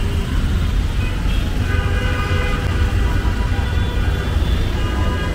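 Street traffic with a constant low rumble, and a long, steady vehicle horn that sounds from about a second in.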